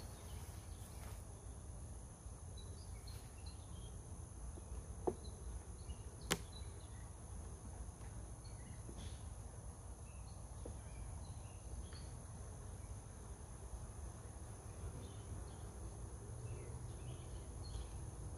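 Honeybees humming around an open hive under a low, steady rumble of wind and handling noise. There are two sharp clicks about a second and a half apart, a third of the way in.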